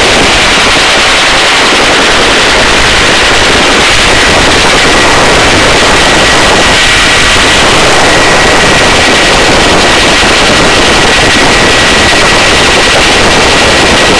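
Helicopter rotor and engine noise heard from inside the cabin at the open door: a loud, steady chop with a steady high whine over it.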